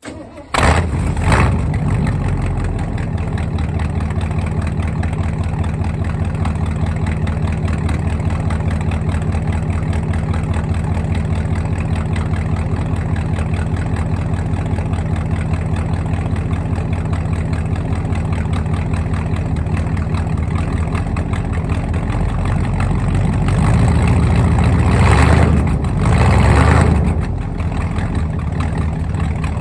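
Ford 302 small-block V8 in an F-150 firing up from cold, heard at the exhaust, with a couple of quick flares as it catches, then a steady rhythmic idle. Near the end the throttle is blipped twice, raising the revs briefly before it drops back to idle. The engine is still cold and not yet running at its best; it sounds better as it warms up.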